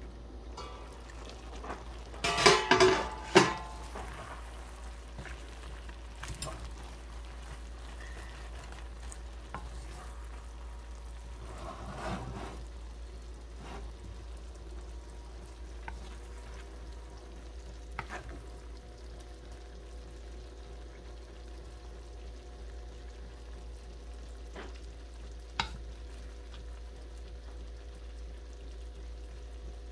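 Stir-fried chicken and water spinach sizzling in a pan. A metal pan lid clatters loudly about two seconds in, and later a wooden spatula scrapes and taps against the pan as the food is served.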